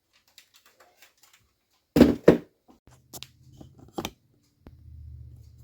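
Plastic parts of a freezer's ice maker being unclipped and handled: small clicks, then two loud knocks about two seconds in and another about four seconds in, with a low hum underneath in the later half.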